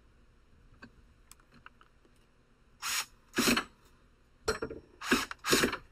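Cordless drill driving a screw into the wooden underside of a counter, run in five short bursts in the last three seconds after a few faint clicks.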